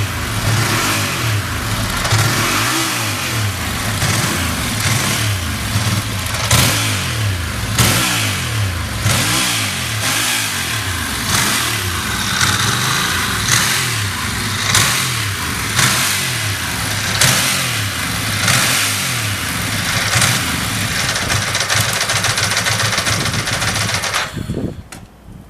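Ducati Monster S4R L-twin engine running with the throttle blipped in quick rev swells about once a second, then switched off near the end. It revs cleanly with no abnormal noise.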